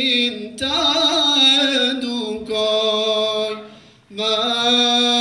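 Male vocal group singing an Albanian Islamic ilahi, with a lead voice on the microphone drawing out long held notes and a wavering run. The phrase fades out a little before four seconds in, and a new held note begins just after.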